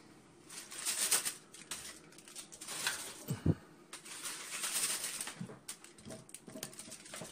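Handling noise from foil-covered baking pans being moved into the oven: rustling bursts and light knocks, with a dull thump about three and a half seconds in.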